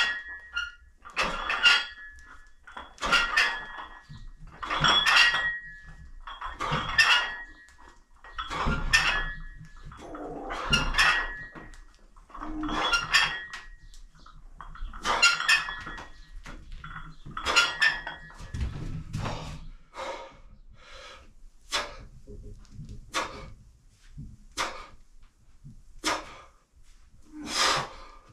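A man breathing out hard with each repetition of a weight-training set, roughly one forceful breath every two seconds, then quicker, shorter breaths near the end. Many of the earlier breaths come with a short metallic ring from the weights.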